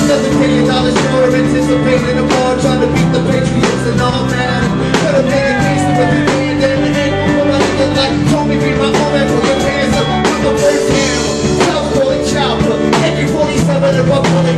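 Live hip-hop music played loud in a small bar: a steady drum beat under held bass and chord notes.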